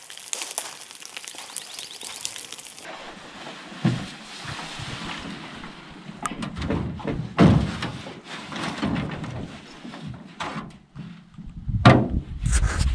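Campfire crackling. It cuts off about three seconds in and gives way to knocks and thumps on an aluminium canoe as it is moved about in and paddled, with paddle and water noise and a low rumble near the end. The loudest knock comes near the end.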